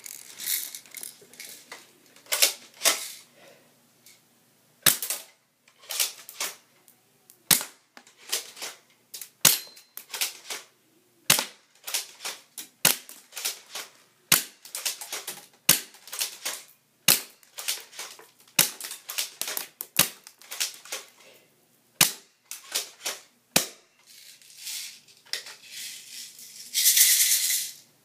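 Pump-action airsoft gun firing 6mm BBs, one sharp snap about every one and a half seconds, with smaller clicks and rattles between the shots. A louder hissing rush comes near the end.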